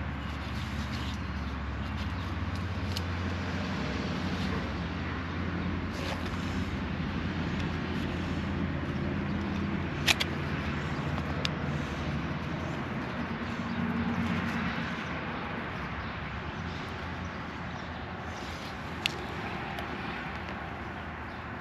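A motor vehicle engine running steadily, with a few sharp clicks over it, the loudest about ten seconds in.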